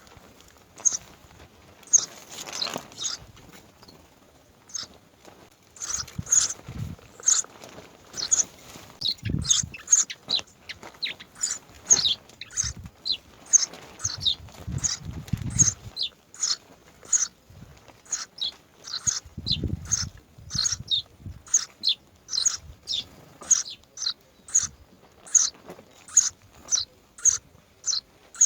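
Nestling birds chirping over and over in short, high calls, about one or two a second at first and closer together later on. A few spells of low thumping and rustling come in between.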